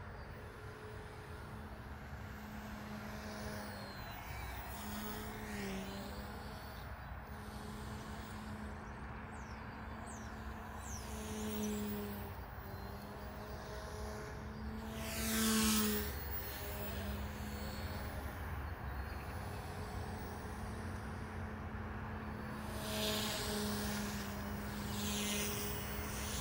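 OMP Hobby M1 electric RC helicopter flying: a steady hum of rotors and motors, with higher whines that dip and climb in pitch as it swings past, loudest on a close pass a little past halfway.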